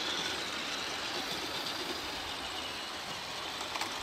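GMade Komodo 1/10 scale electric trail truck driving over a dirt trail, its electric motor and gear drivetrain whining steadily.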